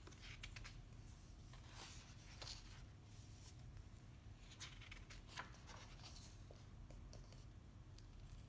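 Faint rustling of a printed book's paper pages being turned and smoothed by hand: several soft swishes, over a low steady hum.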